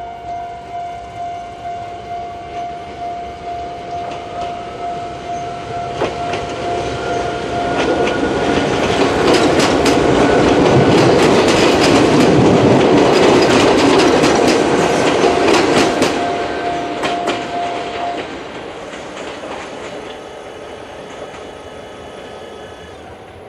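Chichibu Railway level-crossing alarm sounding its single-tone 'Chichibu' warning, a steady pulsing tone, while a train passes over the crossing with wheels clacking on the rail joints. The train is loudest in the middle. The alarm stops about three-quarters of the way through as the train moves away.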